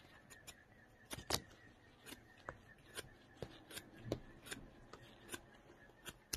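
Knife blade shaving bark off a green sapling stick: a dozen or so short, quiet scraping strokes at an uneven pace.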